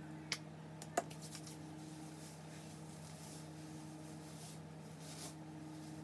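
Soft, irregular rustling of long box braids as hands run through and separate them, over a steady low hum. Two sharp clicks in the first second.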